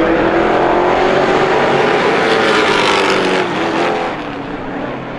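A pack of race trucks' engines running hard together on a short oval track, several engine notes overlapping and rising in pitch. The sound drops off after about three and a half seconds as the pack moves away.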